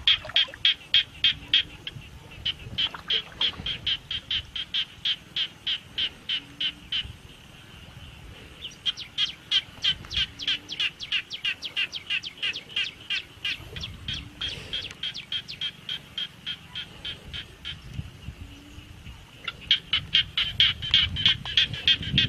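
Rapid trains of high clicking animal calls, about four to five a second. They go in long bouts that break off after about seven seconds, start again, fade in the middle and pick up loudly again near the end.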